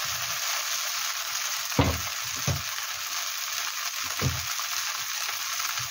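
Fried rice sizzling in a nonstick wok over a gas burner: a steady hiss, with a few knocks and scrapes as a spatula stirs it against the pan.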